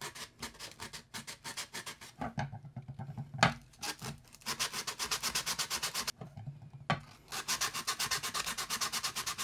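Sandpaper rubbed by hand across a 3D-printed plastic steering-wheel pattern, smoothing its mating face: quick back-and-forth scraping strokes in three runs with short pauses between them. A single sharp knock about three and a half seconds in.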